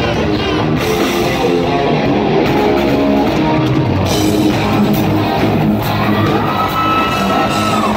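Live heavy-metal rock band playing loud, with distorted electric guitar, bass and drums. A long held high note rises in about six seconds in and breaks off near the end.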